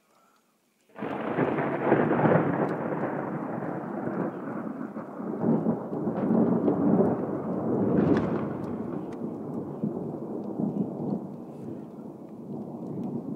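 A thunderclap that breaks suddenly about a second in and rolls on as a long, loud rumble, slowly fading toward the end.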